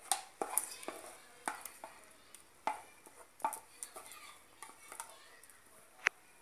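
A plastic spatula scraping and knocking against a glass mixing bowl while thick cream is scraped out into a glass baking dish: a run of irregular clicks and scrapes, with one sharp click near the end.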